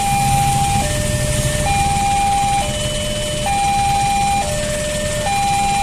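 Railway level-crossing alarm sounding its steady two-tone warning, a higher and a lower tone taking turns about every 0.9 seconds, to signal an approaching train. Under it is the low rumble of idling cars and motorcycles.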